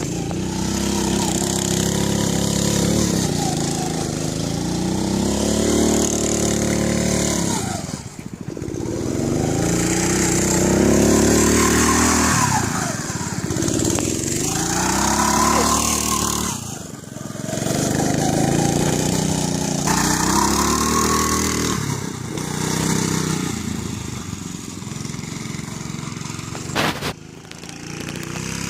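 Off-road go-kart's small engine revving hard in repeated surges, rising and falling in pitch as the kart is driven in donuts and drifts. It drops off briefly about a third and about two thirds of the way through. A sharp click comes near the end.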